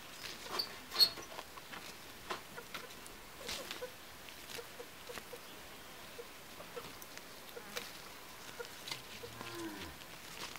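Scattered light clicks and clinks of a metal kettle and teapot being handled at a small outdoor cooking stove, the loudest about a second in. Near the end, a short low animal call.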